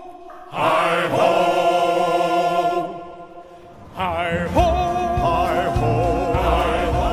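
Ride soundtrack music with voices singing long, wavering held notes in two phrases, with a brief pause between them. A low rumble runs under the second phrase.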